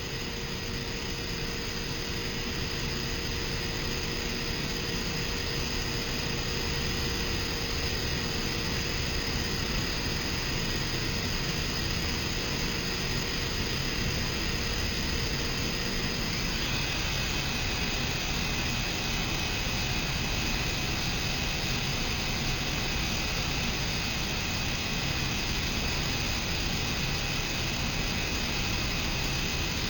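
CNC vertical machining center running under power: a steady mechanical hiss and hum with thin whines over it. About halfway through, a lower tone stops and a higher-pitched whine starts and holds.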